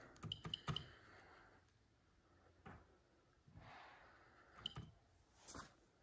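Faint short beeps and taps from a Carrier Infinity touchscreen thermostat as its cooling setpoint arrow is pressed repeatedly: a quick run of about four in the first second, then a few more near the end.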